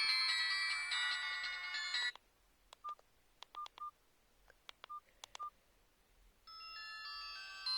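Hykker Classic mobile phone playing a polyphonic ringtone through its small speaker, which cuts off about two seconds in. Then come a few keypad clicks and five short key beeps as the menu is stepped to the next tone. About six and a half seconds in, another ringtone starts with a brighter melody.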